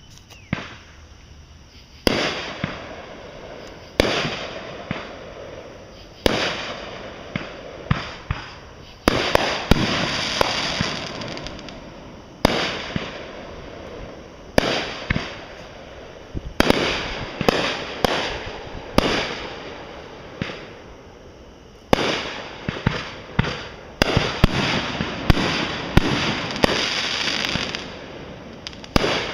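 Fireworks show: sharp bangs every one to two seconds, each followed by a fading rush of small pops, with bursts overlapping in quick succession near the end.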